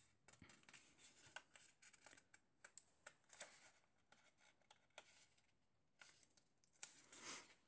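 Faint paper handling: light rustles and small clicks as the pages of a plastic model kit's instruction booklet are turned and smoothed, with a longer rustle about seven seconds in.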